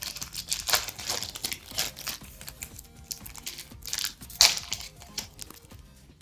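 Foil wrapper of a Pokémon trading card booster pack crinkling and tearing as it is opened, in irregular bursts, the loudest about four and a half seconds in.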